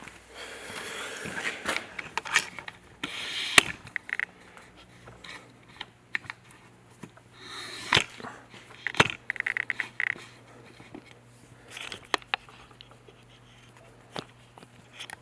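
Handling noises: scattered sharp clicks and knocks, some scraping, and a few short bursts of rustling, with a quick run of rapid ticks about two-thirds of the way through.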